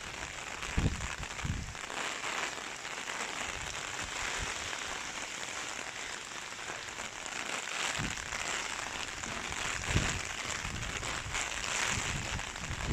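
Heavy rain falling steadily, a dense even hiss, with several low rumbling gusts of strong wind buffeting the microphone.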